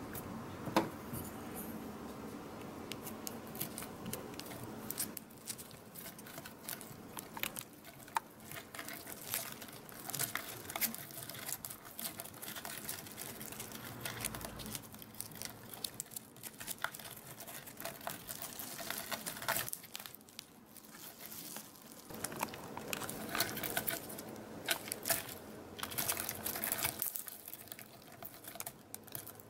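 Irregular scratching and clicking as a Hercules beetle and a giraffe stag beetle grapple, their clawed legs scrabbling and gripping on a textured mat. It comes in busy flurries with a few quieter pauses.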